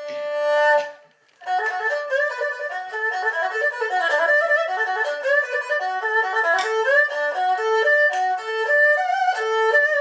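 Solo erhu: a held bowed note that swells and then breaks off about a second in, and after a short pause a fast stream of short notes, trills and slides, played in imitation of birdsong.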